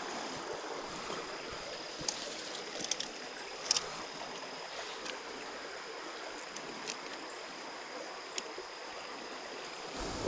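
Steady rush of a trout stream's flowing water, with a thin steady high tone and a few short clicks, the sharpest a little under four seconds in.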